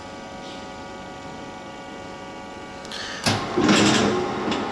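Auto slider painting machine running with a steady hum made of several fixed tones. About three seconds in, a louder burst of noise lasts just over a second.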